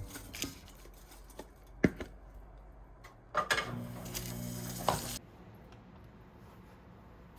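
Household handling sounds in a small room: scattered light clicks and a sharp knock, then a short hum lasting about two seconds that cuts off suddenly with a click.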